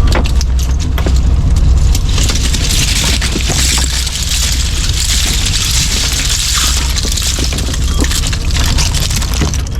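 Fishing boat's engine running with a steady low hum, with knocks and clatter of gear on deck; about two seconds in a loud hiss like rushing water starts and runs until shortly before the end.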